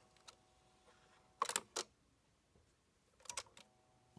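Dual 1228 turntable's automatic start/stop mechanism cycling, with two quick clusters of mechanical clicks as the tonearm lifts and moves: one about a second and a half in, another about two seconds later. The mechanism is now working correctly after repair.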